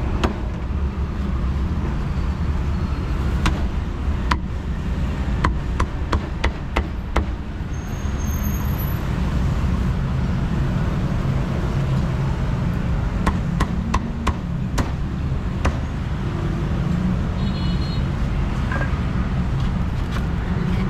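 Knife chopping roast duck on a thick round wooden chopping block: sharp knocks in irregular groups, including a quick run of about five near the middle. A steady low rumble of street traffic runs underneath.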